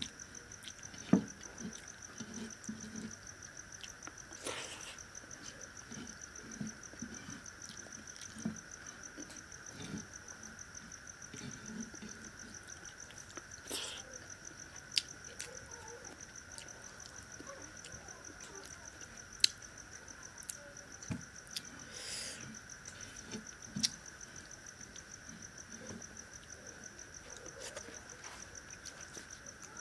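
Eating by hand from a clay plate: fingers gathering rice against the terracotta, soft chewing, and a few sharp clicks now and then. A steady high-pitched trill runs under it all.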